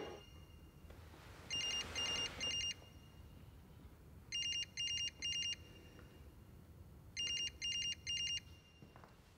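Smartphone ringing for an incoming call: three bursts, each of three short, fluttering, high electronic beeps, repeating about every three seconds.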